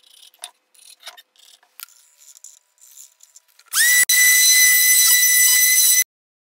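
Random orbital sander switched on: its motor whine rises quickly, then holds as a steady, loud, high-pitched whine for about two seconds before cutting off abruptly. Before it, faint light taps and scrapes of a metal square and pencil on wood.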